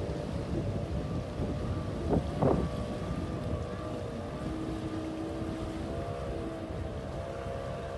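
A motor, likely a boat engine, running with a steady hum over wind noise on the microphone, with two brief louder surges about two seconds in.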